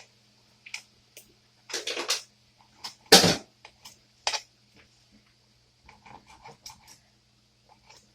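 Irregular knocks and clicks of a knife on a cutting board while chopping food, with the loudest knock about three seconds in.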